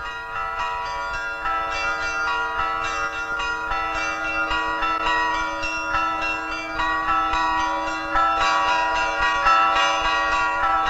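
Bells ringing: many struck notes overlapping in quick succession over a steady held tone.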